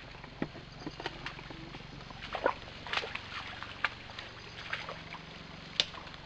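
Footsteps and brushing through forest undergrowth: an irregular run of crackles and snaps from leaf litter, twigs and stems as people walk along a damp trail.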